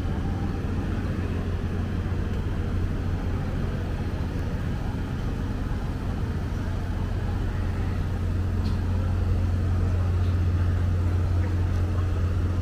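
Street ambience dominated by a steady low hum of road traffic and vehicle engines, growing a little louder in the second half.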